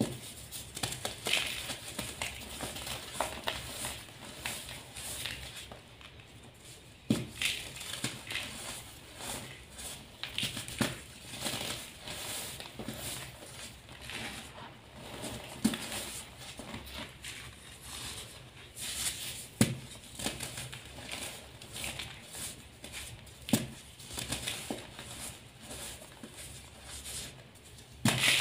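Gym chalk blocks being crushed and crumbled by hand: a continuous gritty crumbling as the chalk breaks down into powder, with a number of sharper crunches scattered through.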